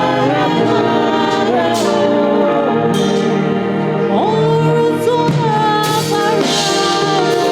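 Gospel worship music: sung voices holding and sliding between long notes over steady accompaniment.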